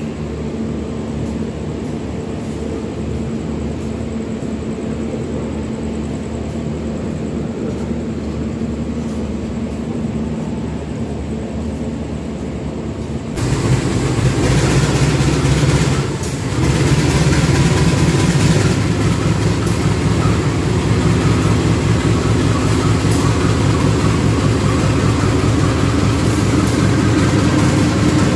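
Steady low hum of a stopped train's diesel engine, then from about 13 seconds in a diesel locomotive idling close by, louder, with a deep steady rumble.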